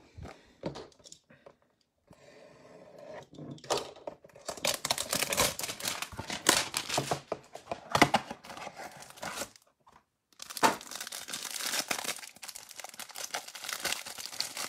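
A Panini Select trading-card hanger box being torn open by hand, with dense tearing from about four seconds in. After a short pause near the ten-second mark, the plastic wrap around the stack of cards crinkles as it is peeled off.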